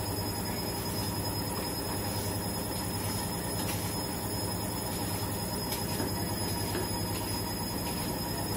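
A steady, even hum holds through, with a few faint scrapes of a knife peeling the skin off a squash on a plastic cutting board.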